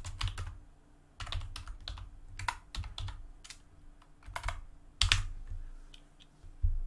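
Typing on a computer keyboard: short runs of quick keystrokes with brief pauses between them, the loudest run about five seconds in.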